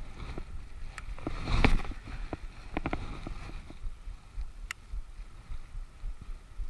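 Wind buffeting the microphone, with a louder rustling swell about a second and a half in and several sharp clicks and knocks scattered through.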